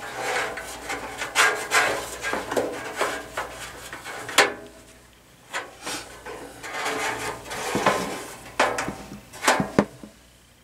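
Rustling and scraping from handling a heater's sheet-metal housing and its power cord and wires, with several sharp metal knocks in the second half as the parts are moved and set down.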